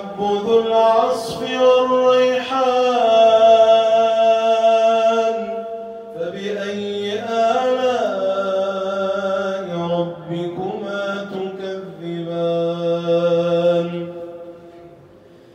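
A male qari reciting the Quran in slow, melodic tajweed style. He sings two long phrases of drawn-out, ornamented notes with a short break between them, and his voice tails off near the end.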